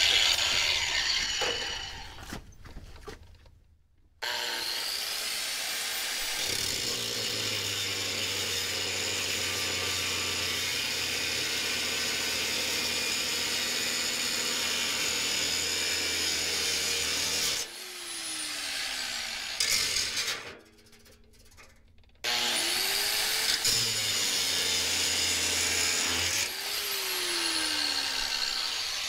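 Electric angle grinder with a cut-off wheel cutting the steel of a semi-truck's muffler heat shield. It spins up about four seconds in, grinds steadily for about thirteen seconds and winds down. After a short pause it starts again and cuts for a few seconds more, winding down near the end.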